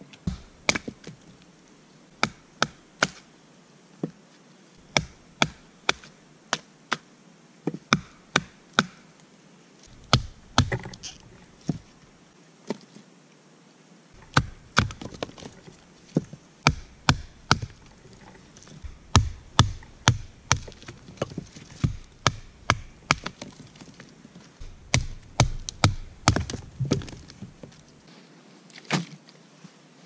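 Sharp wooden knocks and chops, irregular and coming in clusters, of sticks being split into kindling with a blade on a log.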